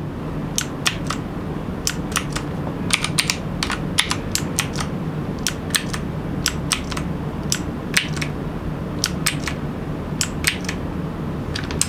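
Clicky blue mechanical key switches on a Redragon K579 keyboard being pressed one key at a time: irregular sharp clicks, often two or three in quick succession, over a steady low hum.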